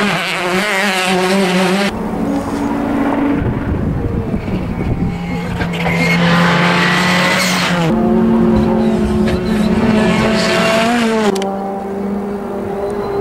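Rally cars driven hard at speed, one after another: engines revving with the note jumping in steps at gear changes, and bursts of tyre and road noise.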